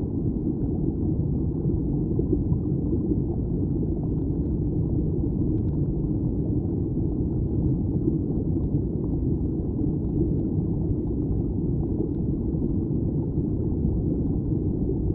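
Steady low underwater rumble of a stream's current, heard through a submerged camera, with a few faint clicks.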